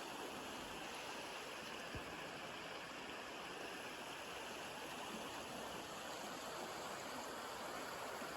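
Faint, steady rushing noise, even and without pitch, such as flowing water or wind, with one small tick about two seconds in.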